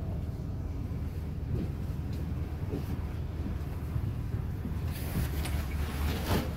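Tram running, a steady low rumble; about five seconds in a hiss joins it.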